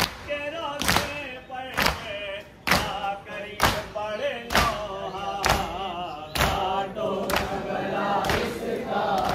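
Men's voices chanting a nauha (mourning lament) together, kept in time by sharp chest-beating slaps (matam) about once a second, each slap the loudest thing heard.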